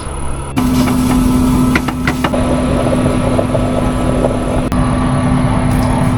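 A vehicle driving: a steady engine drone with a low rumble of road noise, starting abruptly about half a second in.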